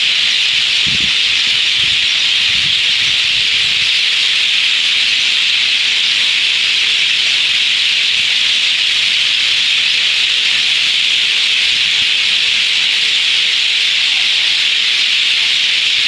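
Dense, unbroken chorus of chirping from a large flock of birds returning to roost, the many calls blending into one steady wash of sound.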